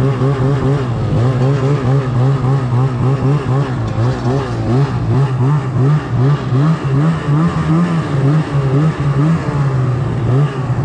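Snowmobile engine running as the sled rides along, the throttle working on and off so the pitch rises and falls every half second or so, climbing somewhat in the second half.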